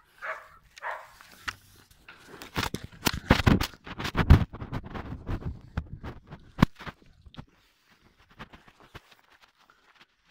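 Footsteps crunching through snow, a dense run of crunches from about two and a half seconds in, thinning out toward the end.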